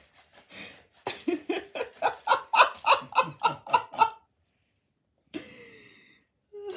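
A person laughing: a run of about a dozen quick, evenly spaced laughs over some three seconds, starting about a second in, followed by two short, quieter sounds near the end.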